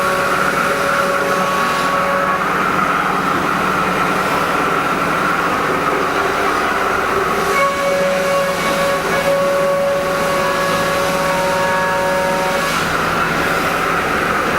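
Haas EC-400PP CNC horizontal mill running, a steady machine hum with several held whining tones. The tones drop out about two seconds in, and a new set comes in about halfway before fading near the end.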